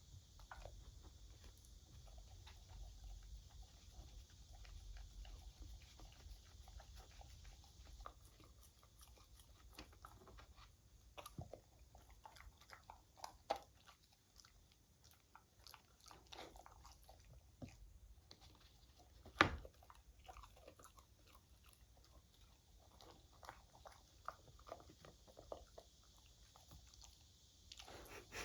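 A beagle eating, with small wet licking and chewing clicks scattered throughout and a few louder knocks, the sharpest about two-thirds of the way through. Under it runs a steady high hiss of cicadas.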